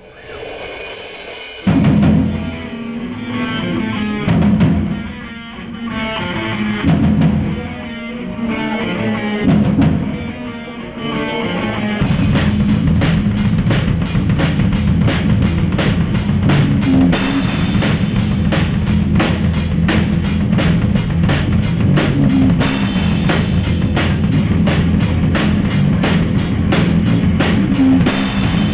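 Live heavy metal band with a drum kit and distorted electric guitar. The first part is an irregular build-up of drum hits and swelling chords. About twelve seconds in, the full band kicks into a fast, driving beat that stays loud and steady.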